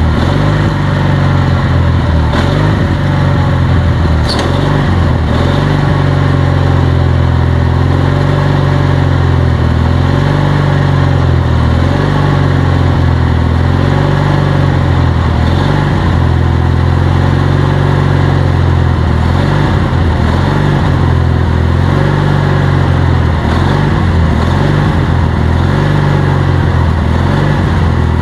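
Garden tractor's small gasoline engine running steadily at a constant speed. It drives the tractor at a slow creep through its hydrostatic transmission.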